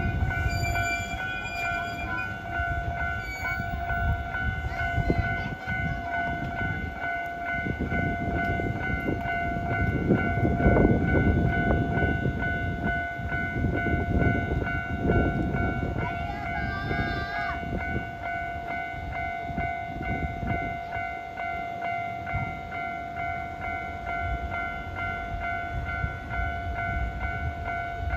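Japanese level-crossing alarm ringing steadily while a Shizuoka Railway 1000 series electric train rolls slowly over the crossing. The train's rumble is loudest about ten to fifteen seconds in, and a short wavering tone sounds just after that.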